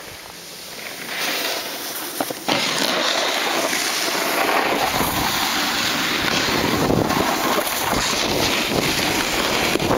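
Wind rushing over the microphone of a camera carried by a snowboarder, with the board scraping over icy piste snow. It gets louder about two and a half seconds in and then stays steady.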